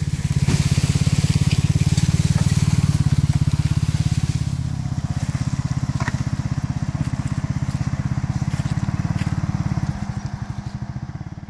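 Kawasaki Mule UTV's engine running close by under light throttle as it backs a loaded boat trailer, with its tyres crunching over dry leaves and gravel. The engine note eases off about ten seconds in.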